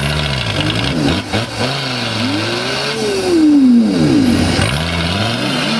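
Modified off-road 4x4's engine revving hard and unevenly as it claws through deep mud, the revs rising and falling several times, climbing to one long high rev about three seconds in and then dropping away.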